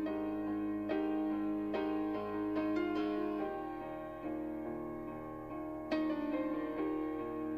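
Background music played on piano, a gentle melody with steady notes.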